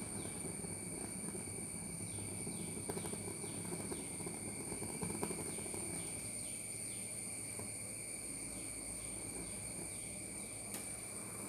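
Low steady noise of a gas burner heating a pot of simmering milk kashaya. Over it run a steady high whine and a string of quick, high falling chirps, about two a second.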